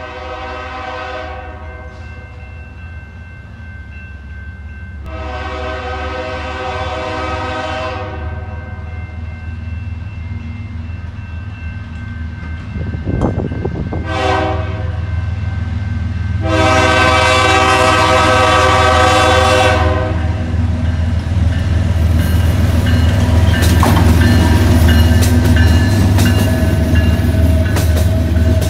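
Freight diesel locomotive's air horn sounding the grade-crossing signal: two long blasts, a short one, then a long one, over a low diesel engine rumble. The rumble grows louder as the train arrives. In the last several seconds, freight cars roll past with steel wheels clicking and clattering over the rails.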